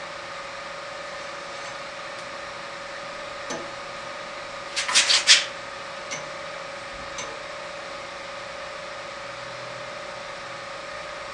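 Light ticks and a quick cluster of four sharp clicks about five seconds in, as the blade of a Craftsman 103-24250 bandsaw is handled at its table and guides while its tracking is set by hand, over a steady hum.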